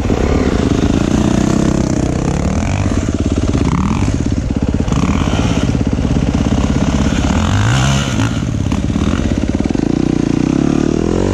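Yamaha YZ250F dirt bike's single-cylinder four-stroke engine running close by, idling and being revved, its pitch climbing near the end as it pulls away.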